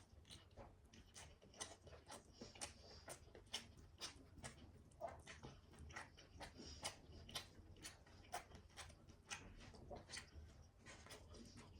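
Faint, close-up eating sounds: wet mouth clicks and chewing smacks, irregular, a few a second.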